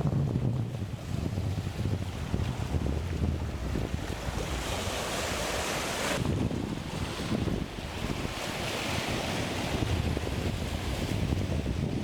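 Wind buffeting the microphone over the hiss of choppy sea waves and spray. The wash swells twice.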